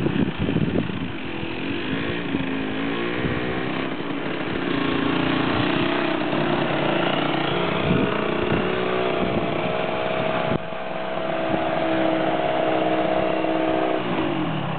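Yamaha DT50MX moped's two-stroke engine, uneven at first, then revving up with its pitch rising over a few seconds and running at steady high revs, with the revs dropping near the end.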